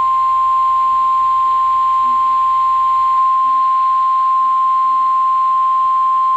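NOAA Weather Radio 1050 Hz warning alarm tone: one steady, unbroken tone, the alarm that sets off weather-alert receivers ahead of a warning, here a severe thunderstorm warning.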